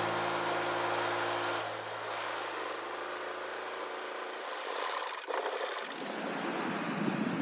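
Riding lawn mower engine running steadily, fading a couple of seconds in as it winds down, with a sharp click about five seconds in.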